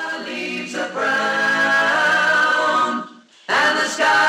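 Music: an a cappella vocal group singing long held chords in close harmony. The voices break off briefly about three seconds in, then come back in.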